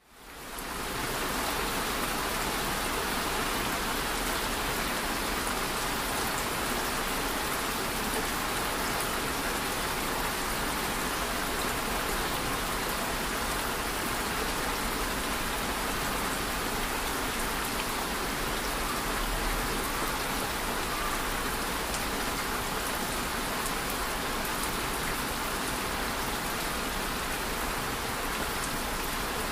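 Steady rain falling, an even hiss of many drops that fades in over the first second and then holds unchanged.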